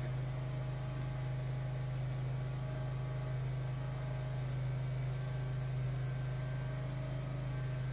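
Steady low machine hum, even in level, with fainter steady tones above it.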